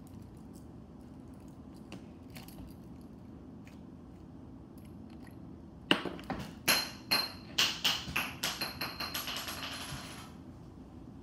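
A small hard object dropped and bouncing on a hard surface: a string of clicks with a faint ringing, coming quicker and fainter over about four seconds.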